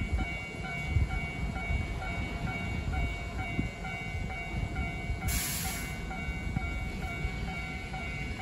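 Keihan 1000 series electric commuter train rumbling slowly into a station. A level-crossing bell dings steadily about three times a second, and a short hiss sounds about five seconds in.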